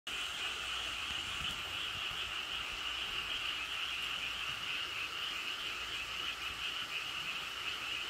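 A dense chorus of many frogs calling at once, a steady high-pitched croaking with no single calls standing out.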